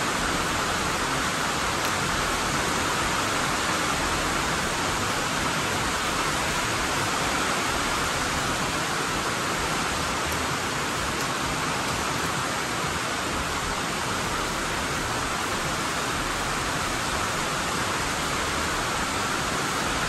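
Steady rain coming down, heard from inside a workshop as a constant, even hiss.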